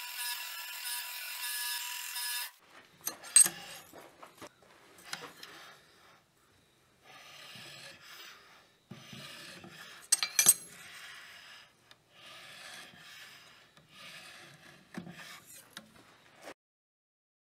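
A machine's high, steady whine stops abruptly a few seconds in. Then come irregular hand rubbing strokes of finishing work on the knife, with a few sharp clicks, until the sound stops near the end.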